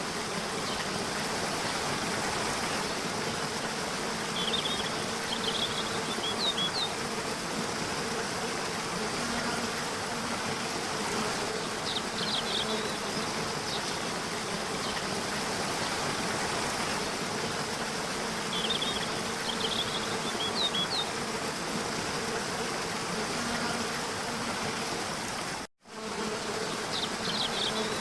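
A steady hum of buzzing insects over a constant rush of water, with short clusters of high bird chirps several times. Near the end the sound cuts out for a moment.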